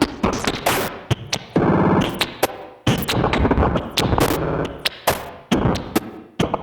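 Bugbrand Chirper 2 Frame modular synthesizer playing experimental electronic music: four modulated voices switching at the same rate, giving a jumpy, stuttering 'hiccup' rhythm. A heavy glitch effect chops it into sharp clicks and uneven bursts that start and stop abruptly.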